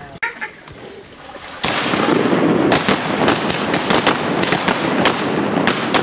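A volley of shotgun fire from several duck hunters shooting together. It begins suddenly about one and a half seconds in, with a dozen or so overlapping shots over the next four seconds and their echoes filling the gaps between them.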